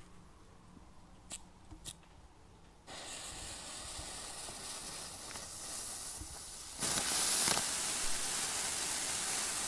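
Small ground-fountain firework (Comet Mini-Power-Vesuv) lit: its fuse begins to hiss about three seconds in, then the fountain ignites just before seven seconds and sprays sparks with a louder steady hiss.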